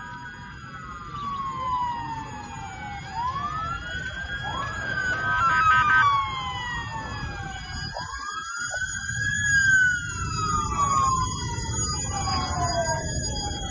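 Several emergency-vehicle sirens wailing at once, their overlapping tones each rising quickly and falling slowly, over a steady low street rumble.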